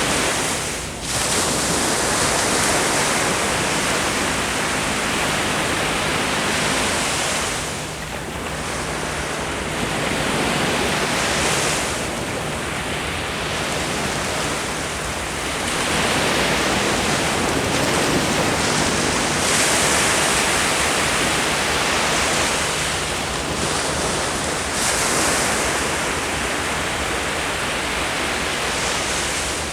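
Ocean waves breaking and washing up a beach, a continuous surf hiss that swells and ebbs every few seconds as successive waves come in.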